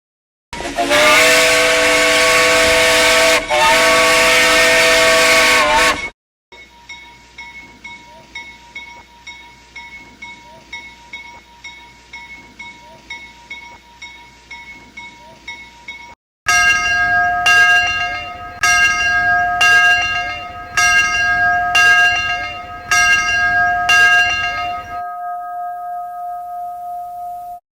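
Steam locomotive's whistle blowing a loud chord for about five seconds, with a brief dip partway through. A quieter stretch of steady tones with a quick pulsing beat follows. Then the locomotive bell is struck about once a second, roughly nine strokes, and rings out.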